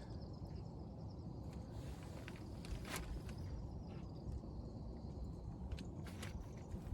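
Steady low outdoor background rumble with a faint high insect trill, broken by a few soft clicks about three seconds in and again near six seconds.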